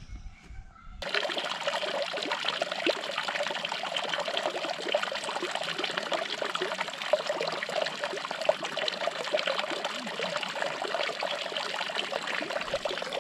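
Running water trickling and splashing steadily, starting suddenly about a second in.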